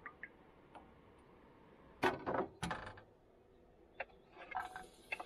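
Cookware and utensils being handled while cooking: a few light clicks, a loud clatter about two seconds in with a second just after it, then lighter knocks and clicks near the end.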